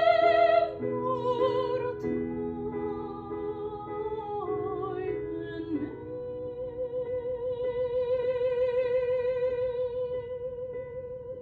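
Operatic-style music: a high singing voice holds long notes with wide vibrato over sustained chords, sliding down through a few notes about halfway through, then holding one long note to the end.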